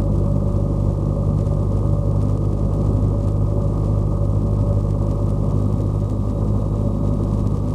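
Single-engine light aircraft's piston engine and propeller, heard from inside the cabin as a steady low drone in flight.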